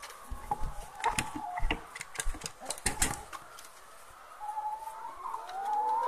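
A run of sharp knocks and scuffs, then, from about four and a half seconds in, a laying hen's long drawn-out call that wavers around one pitch.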